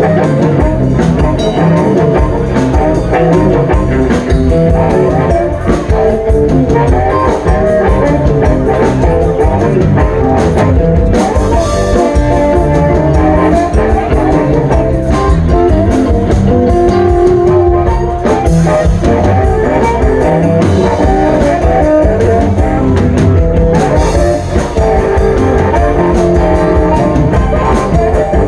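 Live blues band playing an instrumental passage: guitar over bass and drum kit, steady and loud.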